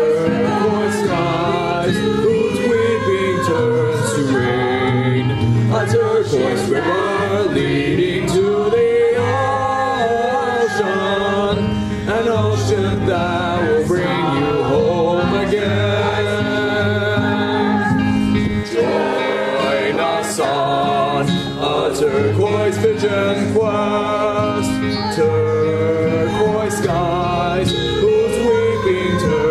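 A choir singing a song live over a band's accompaniment.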